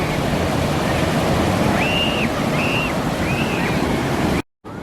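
Ocean surf washing on the shore, a steady rushing noise with wind buffeting the microphone. Three short high-pitched calls sound over it around the middle, and the sound cuts out abruptly for a moment near the end.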